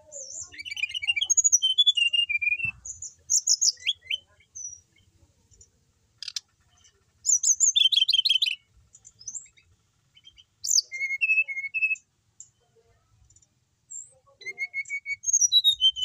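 Brown-chested jungle flycatcher singing in short bursts of quick, high chirps and trills, about four phrases with pauses of a second or two between them.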